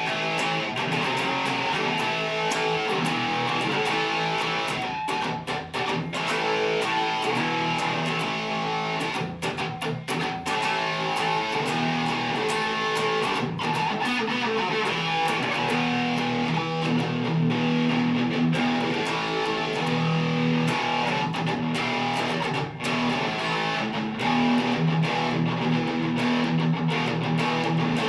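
Mexican-made Fender Stratocaster electric guitar with Lace Sensor pickups, played on the bridge pickup with volume and tone all the way up: a continuous run of picked notes and strummed chords.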